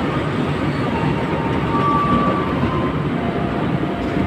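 Executive-class passenger coaches of the Jayabaya long-distance train rolling past along the platform as it pulls into the station: a steady rumble of wheels on rail, with faint thin squeals now and then.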